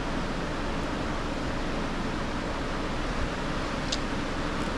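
Steady rushing noise of a running fan, even throughout, with a faint short click about four seconds in.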